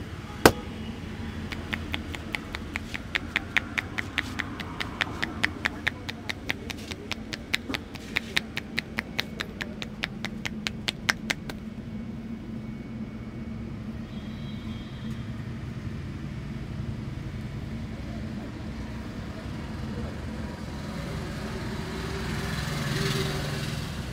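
Rapid rhythmic hand slaps on a head during an Indian head massage, sharp claps about four a second that stop about eleven seconds in, after a single loud crack near the start.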